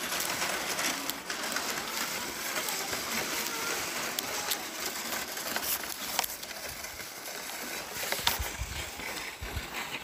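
Footsteps crunching on packed snow, an uneven run of short crunches over a steady hiss, with faint voices.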